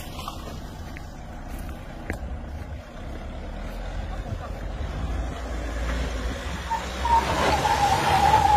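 Mahindra Thar's engine working under load as the 4x4 climbs a steep sandy slope, growing steadily louder, with a harder, noisier sound in the last second or so.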